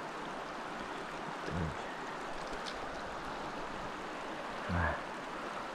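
Steady rush of river water running over shoals. Two brief, faint low voice sounds come through, about a second and a half in and near the five-second mark.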